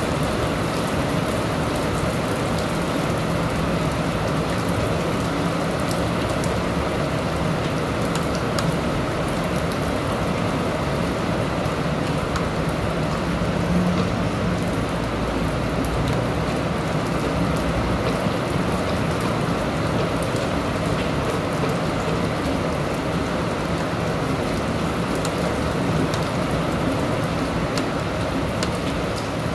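Steady rain falling, an even dense hiss of drops. A low rumble swells briefly about halfway through.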